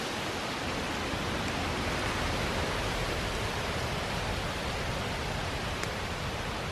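A steady, even hiss of outdoor background noise, with no distinct events.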